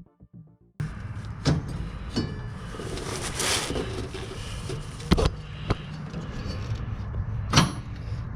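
Music cuts off under a second in, followed by hands-on work sounds: a steady hiss with several sharp metal knocks and clinks, from tools and parts being handled on the riding mower.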